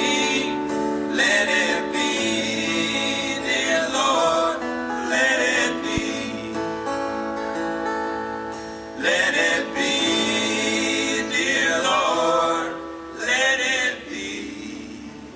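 Live acoustic string band playing with singing, plucked acoustic guitar and held vocal notes, in a poor-quality audience recording. The music drops off near the end.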